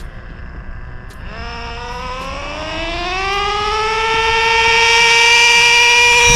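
A small high-speed motor spinning up: a whine that climbs in pitch and grows louder for a few seconds, then holds steady at a high pitch.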